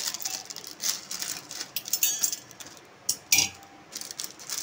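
Plastic instant-noodle wrapper crinkling as the noodle block is worked out of it into a stainless steel pot, with one sharp metallic clink from the pot a little over three seconds in.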